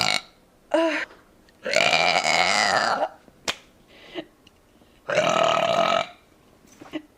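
A woman burping: a short burp about a second in, then two long drawn-out burps, the first about a second and a half long and the second about a second.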